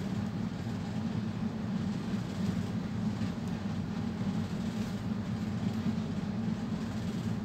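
A steady low rumble of background noise, even throughout, with no distinct knocks or clicks.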